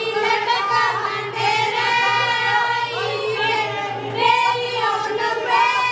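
A group of women singing a song together into microphones, in high voices with long held notes.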